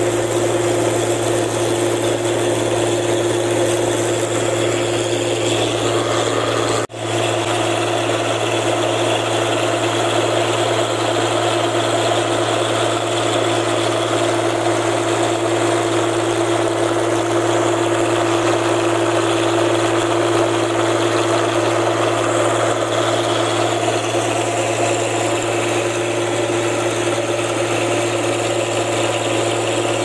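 Rice combine harvester running steadily, its engine and threshing machinery making a constant hum, heard from on top of the machine beside the grain tank. There is a momentary gap in the sound about seven seconds in.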